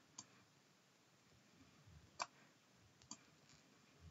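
Near silence broken by three faint, short computer mouse clicks, the one about two seconds in the loudest.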